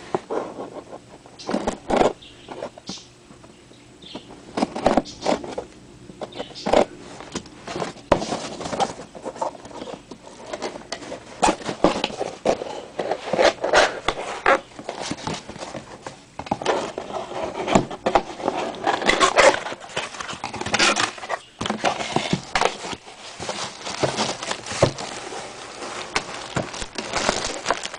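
Earphone retail packaging being handled and opened by hand: irregular scrapes, rustles and sharp clicks of cardboard and plastic.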